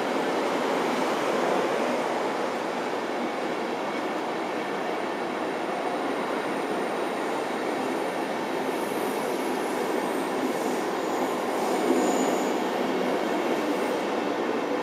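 Intercity passenger coaches rolling past as the train pulls out of the station: a steady rumble of wheels on rail, with a few faint, brief high squeals in the second half.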